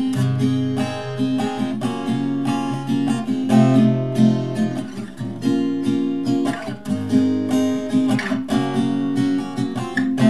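Acoustic guitar playing an instrumental break of regularly strummed chords.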